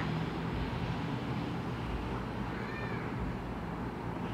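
A cat meows once, a short call rising then falling in pitch about two and a half seconds in, over a steady low background rumble.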